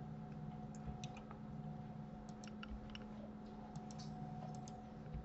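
Faint, scattered clicks of a computer mouse and keyboard, a few at a time, over a steady low hum.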